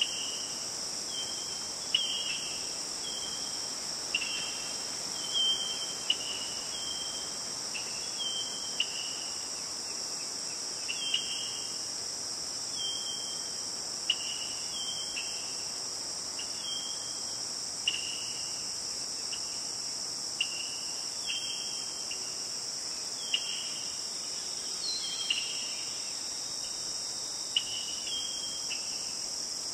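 Insects calling: a steady high-pitched drone, with short chirps repeating about once a second, some of them opening with a sharp click.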